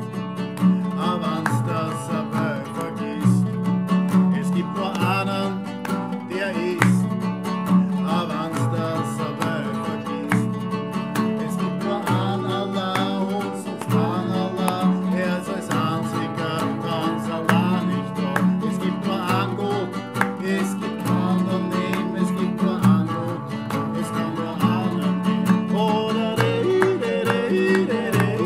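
Music led by plucked acoustic guitar, with a steady strummed rhythm.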